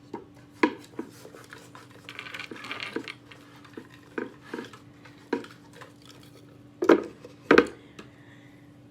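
Scattered clinks and taps of cutlery against dishes, the two loudest knocks near the end, with a brief rustle a couple of seconds in.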